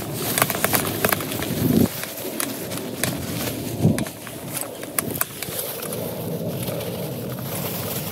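Footsteps swishing through long grass in rubber boots, with a few heavier thuds, while a thin plastic bag crinkles and crackles in the hand.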